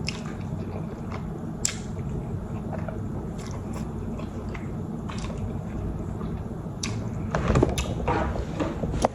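A person chewing food close to the microphone, with scattered small mouth clicks and smacks that grow busier and louder near the end.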